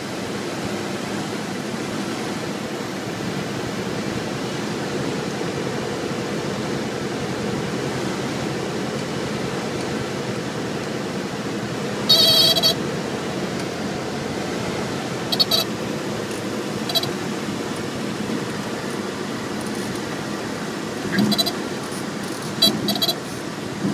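Single-engine propeller airplane's engine and propeller droning steadily inside the cockpit during final approach and touchdown. A loud high-pitched chirp comes about halfway through, with several shorter ones near the end.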